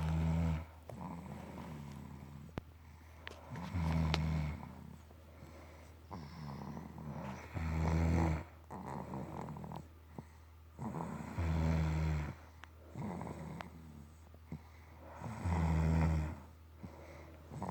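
Snoring: a low, loud snore of about a second recurring about every four seconds, with softer breathing noises in between.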